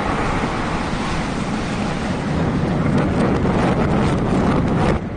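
Continuous rumbling rush of a demolished building collapsing and its dust cloud spreading, with wind buffeting the microphone. It cuts off abruptly near the end.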